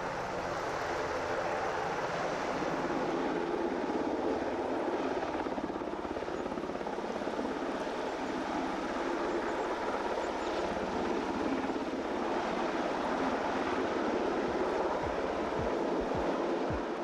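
HM Coastguard Sikorsky S-92 search-and-rescue helicopter hovering close overhead, a steady rotor and turbine noise with the fast chop of the main rotor blades.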